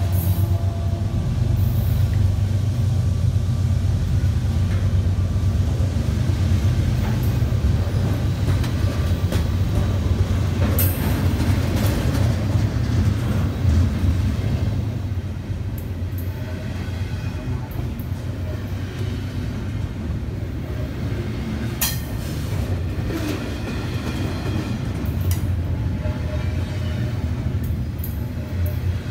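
Double-stack container well cars of a freight train rolling past close by: a steady low rumble of steel wheels on rail, with scattered sharp clicks and clanks.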